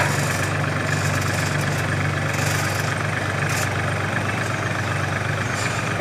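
Crawler rice combine harvester's engine running steadily, a constant-pitch low hum.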